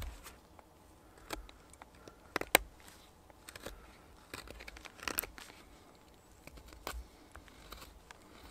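Carving knife shaving the end of a peeled stick: a series of short, irregular scraping cuts, the sharpest about two and a half seconds in.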